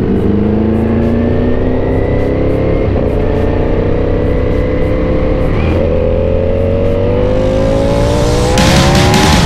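Sport motorcycle engine pulling under acceleration, its pitch climbing steadily, dropping once at an upshift a little past halfway, then climbing again. Near the end a louder rushing hiss joins it.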